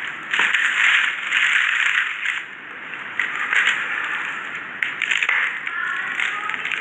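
Dry chalky lumps crumbled and crushed between gloved fingers over paper: crisp crunching and crackling in bursts, loudest in the first two seconds, with small grains pattering onto the paper.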